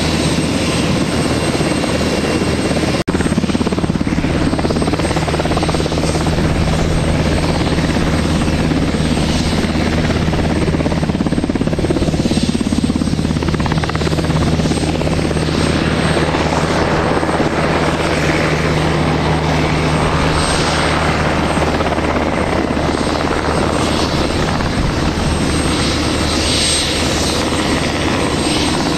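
UH-60 Black Hawk helicopter in flight, its main rotor and twin turbine engines making a loud, steady drone with a low hum underneath. There is a brief break about three seconds in.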